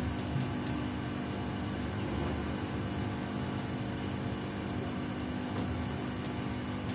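Samsung WW75TA046TE front-loading washing machine running with a steady hum and a few sharp ticks scattered through. The owner treats the noise as a fault, and a technician judged the machine's humming not normal.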